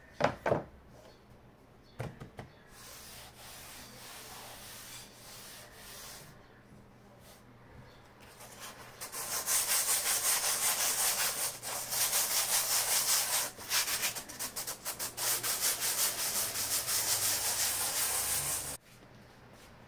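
Sandpaper rubbed back and forth by hand across a stretched canvas: soft scratching at first, then loud, rapid sanding strokes from about nine seconds in that stop abruptly near the end. Two sharp knocks come near the start.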